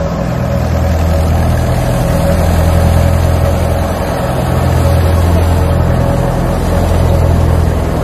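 Wheat thresher running steadily in the field: a loud, low mechanical drone with a faint steady whine above it.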